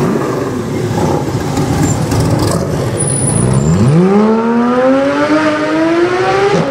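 Porsche 991 GT3 flat-six with an iPE aftermarket exhaust accelerating hard. After about three and a half seconds of low engine and street noise, the engine note climbs steadily in pitch for about three seconds, drops briefly near the end as it shifts up, then climbs again.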